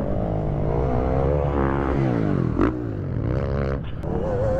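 Dirt bike engines revving, their pitch rising and falling with the throttle, more than one bike running at once. A short sharp knock about two and a half seconds in.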